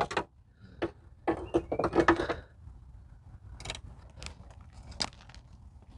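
Screwdriver prying and scraping at the parking brake cable and its fastener on the rear subframe, giving scattered clicks and knocks. A louder clatter comes about a second and a half in.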